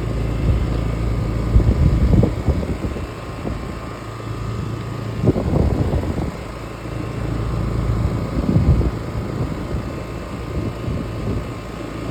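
Outdoor air-conditioner condenser unit running, its fan and compressor giving a steady hum. Louder low rumbles swell up about two, five and a half and eight and a half seconds in.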